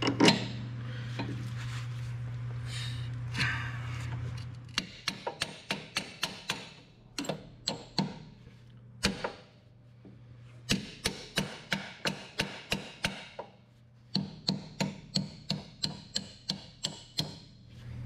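Steel hammer tapping on steel in quick runs of about five light taps a second, with one harder blow right at the start, working the torque rod's mounting bolts home through the bushing end and axle bracket. A steady low hum lies underneath for the first few seconds.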